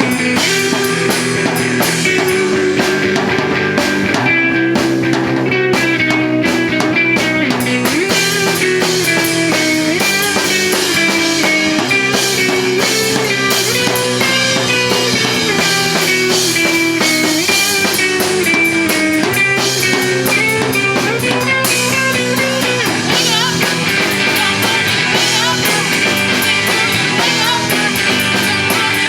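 Live rock band playing an instrumental passage: guitars over a drum kit with steady cymbals, without singing.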